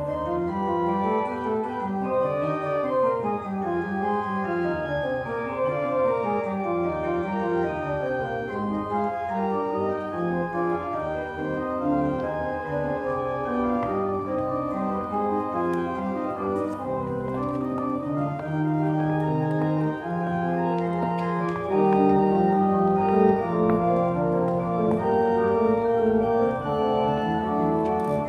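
Organ playing the closing voluntary (postlude) after the dismissal. Quick running figures give way to long held chords, which get louder for the last several seconds.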